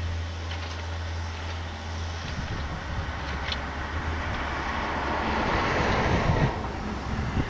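A car driving past on the road, its noise swelling over the second half and then fading, over the low hum of a Yanmar ViO57 mini excavator's diesel engine working.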